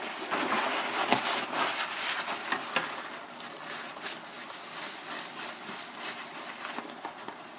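Paper towel rubbing and rustling over the Vega 56 GPU die as old thermal paste is wiped off, with many small clicks and scrapes. It is busiest and loudest in the first few seconds, then settles into lighter rubbing.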